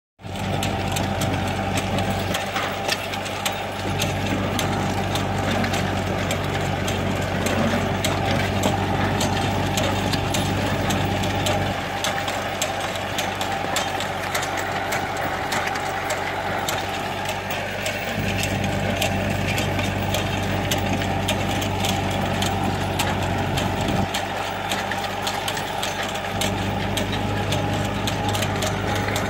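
Farm tractor engine running steadily while pulling a plastic mulch layer, with frequent light clicks and rattles throughout.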